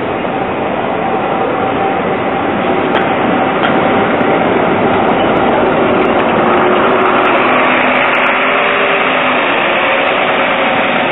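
A Škoda 15T ForCity tram and a city bus pass close by on cobbled track, making steady running noise. A motor whine holds on a single pitch at first, then several pitches sound together in the second half as the vehicles draw nearest.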